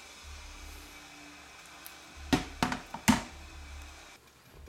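A metal utensil knocking against a cooking pot three times in quick succession, sharp clinks over a low steady hum.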